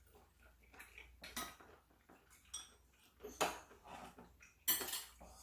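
Eating utensils clinking against dishes during a meal: a handful of scattered, fairly quiet clicks and knocks, the loudest about three and a half seconds in and just before the end.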